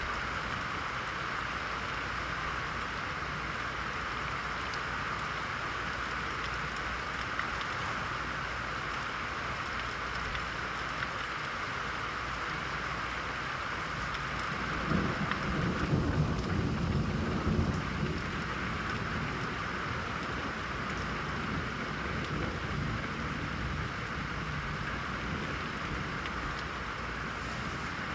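Steady heavy rain hissing throughout a thunderstorm, with a roll of thunder rumbling for about three seconds around the middle.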